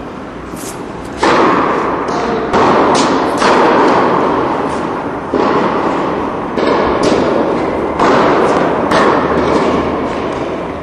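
Tennis balls struck back and forth with rackets in a warm-up rally, about seven sharp hits, each ringing out in the echo of a large indoor tennis hall.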